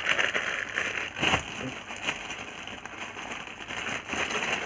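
Plastic packaging crinkling and rustling as it is handled, in irregular bursts with a sharper crackle about a second in.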